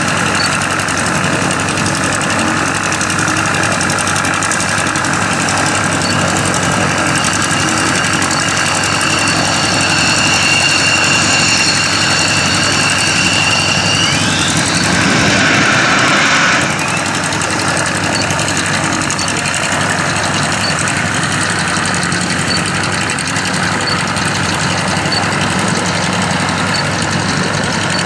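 F-16 jet engine running at low power, a steady rush with a high turbine whine whose pitch bends about halfway through. A louder rush follows a little past halfway and cuts off suddenly.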